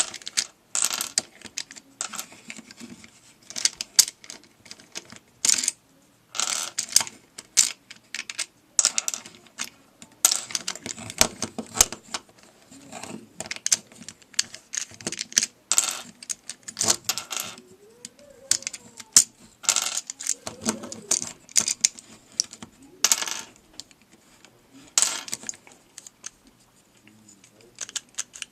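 Plastic pieces of a LanLan Rex Cube puzzle clicking and clattering as its layers are turned and pieces are popped out and set down, in irregular sharp clicks of varying loudness.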